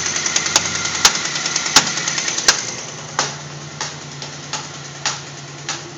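Pontiac 3800 Series II V6 running with a rapid ticking and sharp knocking clicks from the valvetrain, the sign of a loose rocker arm. About three seconds in it gets quieter, leaving a steady hum with sharp clicks roughly every two-thirds of a second.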